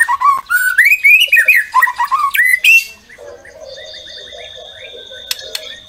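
White-rumped shama singing a loud, rapid run of varied whistled notes that sweep up and down, lasting nearly three seconds. Then come quieter short notes over a steady high-pitched tone, and two sharp clicks near the end.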